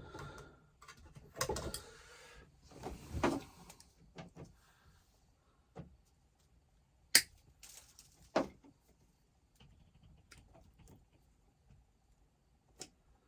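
Handling noises from wiring work: rustling and scraping in the first few seconds, then two sharp clicks about a second apart and scattered faint ticks.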